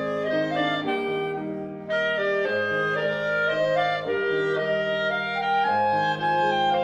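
Two clarinets playing a slow melody in harmony, a lower part holding long notes under the upper line; a new phrase starts about two seconds in after a short breath.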